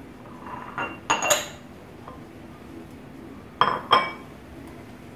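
Small ceramic ramekins clinking against each other and on a stone countertop as they are picked up and stacked: two sharp clinks about a second in, and two more about three and a half seconds in.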